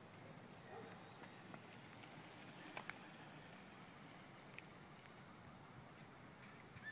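Near silence: faint outdoor background hiss with a few soft clicks near the middle.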